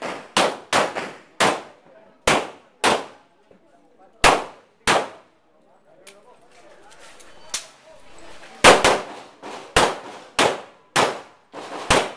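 A string of handgun shots in quick succession, about half a second apart, each with a short ring after it. There are seven shots, a pause of about three and a half seconds, then about eight more.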